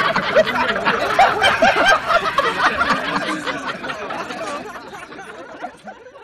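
A group of people laughing together at a joke, the laughter thinning out and dying away near the end.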